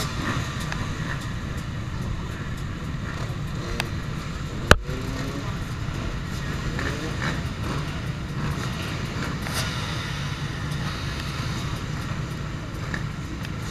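Steady low rumble of many motocross bikes' engines running together on the start grid, with crowd voices, and a single sharp crack a little past a third of the way in.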